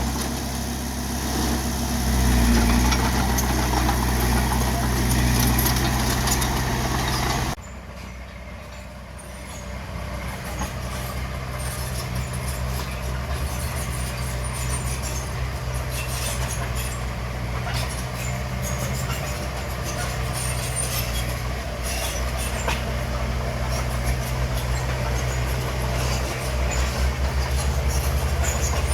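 Bulldozer's diesel engine running steadily under work, with scattered clanks and rattles. The sound drops suddenly about seven seconds in, then builds back to the same steady running.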